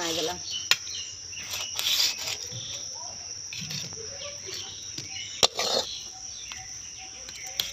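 Metal spatula scraping and clinking against a steel pan and plate as thick leaf paste is scooped out, with sharp clinks about a second in, near the middle and near the end. A steady high insect drone runs underneath.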